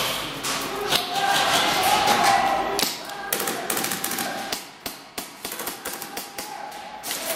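Airsoft guns firing irregular single shots and short strings of clicks, with indistinct shouting in the first half.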